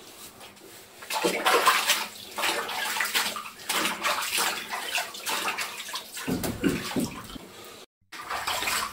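Bathwater splashing and sloshing in a tub as hands rub and wash a Shiba Inu standing in it. The first second is quiet, then irregular splashes follow, breaking off briefly near the end.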